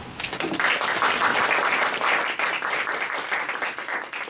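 Small audience applauding: many hands clapping together, starting about half a second in and tapering off near the end.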